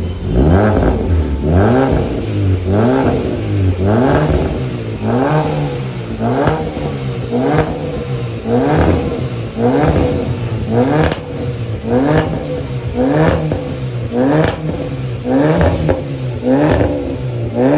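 Kia Cerato K3's engine revved through a modified quad-tip exhaust with a valvetronic valve, blipped over and over, about once every 1.2 seconds, each rev rising quickly and dropping back to idle.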